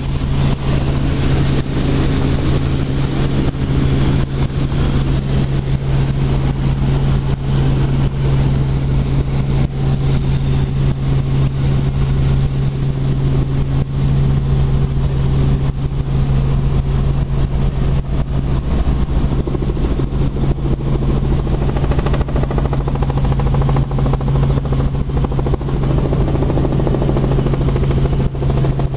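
Robinson R44 Clipper II helicopter in flight, heard from inside the cabin: its six-cylinder piston engine and rotors make a loud, steady drone with a strong low hum.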